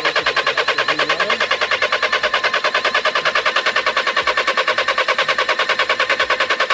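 Starter motor cranking a common-rail TDI diesel engine that does not fire, in a fast, even rhythm of about ten pulses a second. It will not catch because air is in the fuel system after an injector was replaced, and the system needs bleeding.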